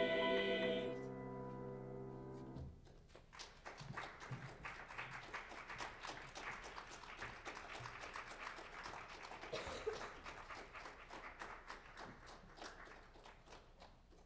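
A vocal jazz choir holds its final chord and cuts it off about two and a half seconds in. Audience applause follows and fades out near the end.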